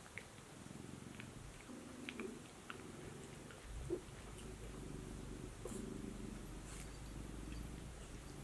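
Domestic cat purring close to the microphone in long rhythmic stretches, with a few light clicks and one sharp tap about four seconds in.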